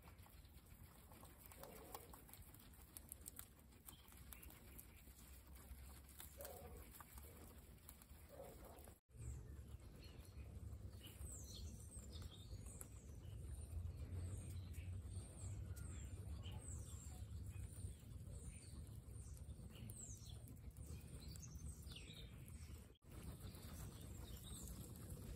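Faint outdoor background of birds: a pigeon cooing softly a few times in the first few seconds, then many quick high chirps from small birds over a low rumble, with faint ticks like guinea pigs nibbling grass.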